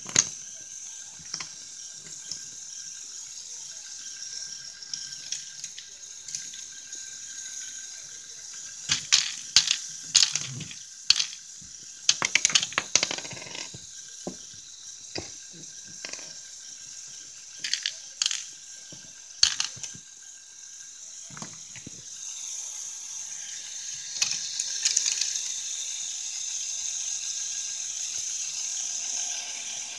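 A running Lego Technic model: a steady high whir with clusters of sharp plastic clicks and rattles in the middle, and the whir growing louder near the end.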